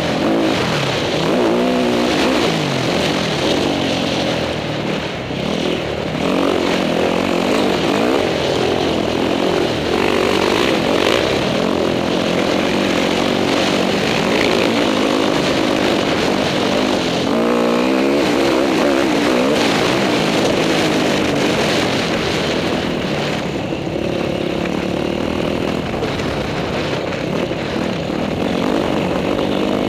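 Dirt bike engine being ridden hard on a motocross track, revving up and down repeatedly as the rider rolls on and off the throttle.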